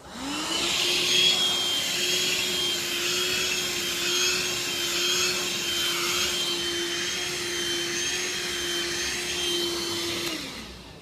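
Vacuum cleaner motor spinning up as it is switched on, running steadily with a high whine over its drone, then winding down as it is switched off near the end.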